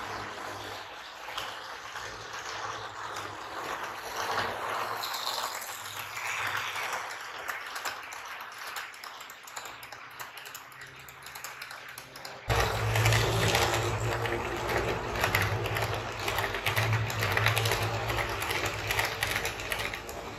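HO-scale model train of LHB coaches pulled by a WAP-7 electric locomotive model running on the layout track, its wheels clicking and rattling over the rails. About twelve seconds in it jumps suddenly louder and a steady low motor hum comes in.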